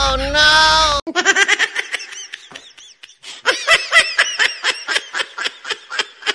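Background music that stops abruptly about a second in, then high-pitched laughter in quick repeated pulses, with a short break partway through.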